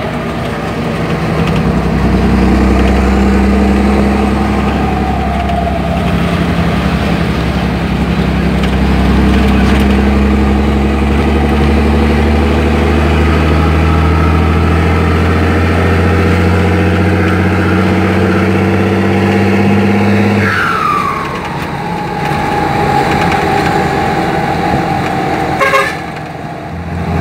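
Mercedes-Benz 1618 dump truck's turbo-diesel engine pulling while driving, heard from inside the cab, with a whistle from a 'pente' whistle insert fitted in the turbocharger. About twenty seconds in, the engine note drops off and the turbo whistle slides down in pitch and slowly fades; a sharp click comes near the end.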